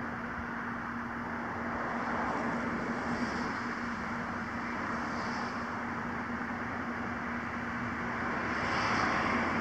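Steady background noise of road traffic with a constant low hum underneath; it swells a little near the end.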